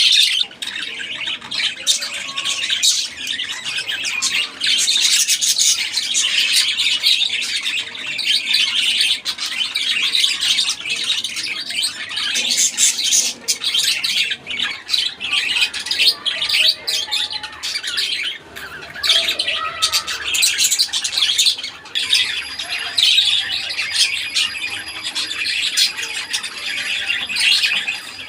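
A flock of budgerigars chirping and chattering continuously, many birds at once with squawks mixed in. A faint steady high whistle-like tone sits underneath for a few seconds near the end.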